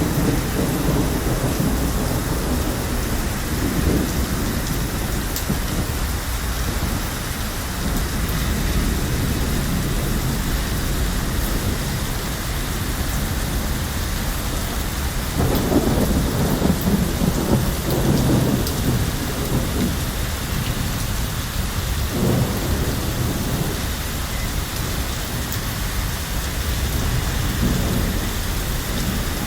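Steady heavy rain hissing, with deep low rumbles that swell a little past halfway and once more shortly after.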